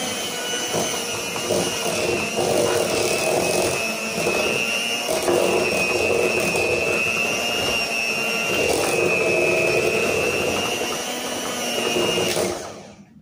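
Electric hand mixer running steadily with a high motor whine, its beaters working through a thick mascarpone, egg and sugar cream; it is switched off near the end.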